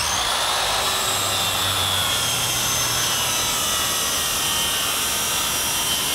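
Corded portable circular saw running at full speed with a steady high whine, its blade feeding into a wooden board.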